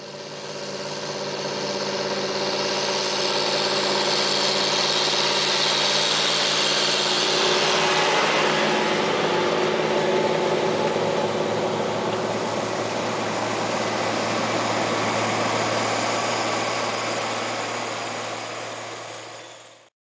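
Large farm tractor's diesel engine running steadily under load while pulling a plough. The sound fades in over the first couple of seconds and fades out at the very end.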